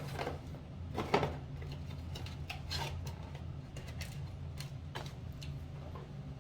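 A few light clicks and knocks of small hard objects being handled, the loudest about a second in, over a steady low machine hum.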